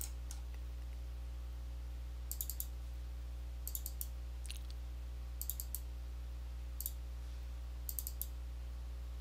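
Computer mouse button clicking in quick pairs and triples, about six bursts spread over several seconds: double-clicks opening folders one after another in a file dialog. A steady low hum runs underneath.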